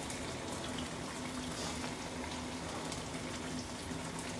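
Chicken pieces frying in hot oil in a pan, a steady sizzle, with a faint low hum underneath.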